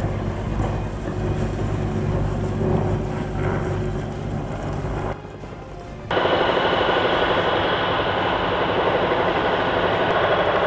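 Steady engine noise of heavy machinery: a low engine hum for about five seconds, a short quieter stretch, then a louder, steady engine sound from about six seconds in.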